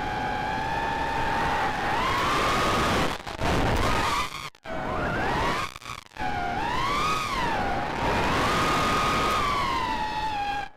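Whine of a 4-inch FPV racing quadcopter's Cobra 2206 2100kv brushless motors and HQ 4040 tri-blade props, heard from the onboard camera, gliding up and down in pitch with the throttle. It cuts out briefly a few times between about three and six seconds in.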